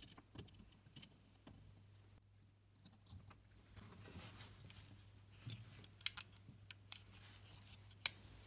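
Quiet small clicks and taps of hands handling an opened Makita BL1830 battery pack, its plastic cell holder and soldered nickel strip tab, with a sharper click near the end. A faint steady low hum runs underneath.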